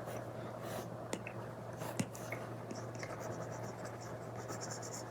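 Stylus tip drawing on a tablet screen covered with a paper-like film: soft scratching strokes, with two sharper taps about one and two seconds in and a run of quick scratchy strokes in the second half.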